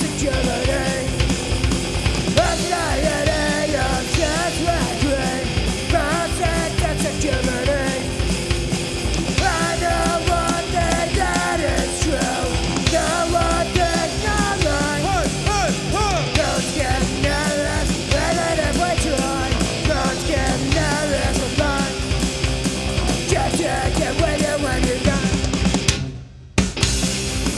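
Punk rock band playing live: electric guitar, bass guitar and drum kit, with a wavering melody line over the top. The music drops out for about half a second near the end, then comes back in.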